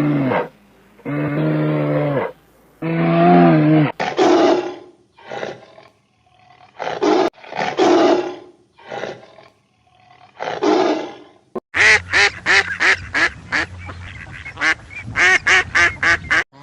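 Wild animal calls from several clips cut together: three short pitched calls, then a series of rough, breathy calls, then a rapid run of short, higher calls about three a second near the end.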